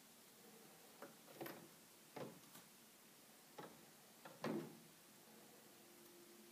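Near silence broken by a handful of faint, irregular clicks and taps from a young squirrel clambering on a window screen and eating insects off it; the loudest tap comes about four and a half seconds in.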